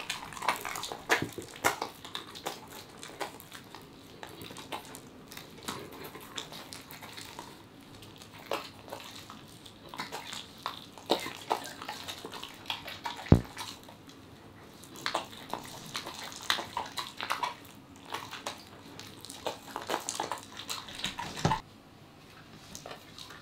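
Welsh corgi chewing and tearing at a raw turkey wing: irregular wet smacking, crackling and crunching of skin and bone. A sharp knock comes about halfway through and another near the end.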